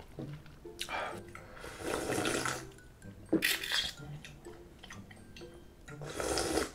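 A person slurping cold naengmyeon noodles and drinking the broth from a stainless steel bowl, in four wet, noisy slurps about a second apart at first, then one more near the end. A sharp click comes about halfway through.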